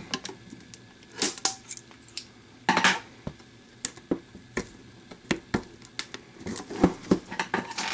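Scissors snipping and plastic shrink-wrap crinkling as the wrap is cut off a metal tin, in scattered clicks and short rustles.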